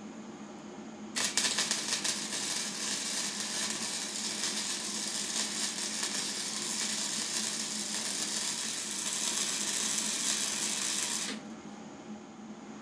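Hobart Handler 140 MIG welder running .030 flux-core wire, welding a lift bracket to a steel mower deck. The arc strikes about a second in, crackles and sizzles steadily for about ten seconds, then stops suddenly.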